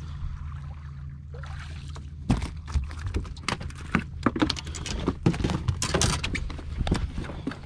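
A bass being landed on a bass boat: after a stretch of steady low hum, from about two seconds in comes a run of irregular knocks, thumps and clatter as the fish is swung aboard and flops on the deck.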